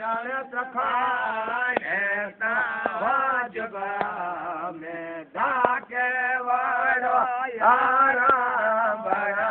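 A man chanting a devotional song to the deity Mamai Dev. His voice waves and slides in pitch, in phrases a second or two long with short breaks between them.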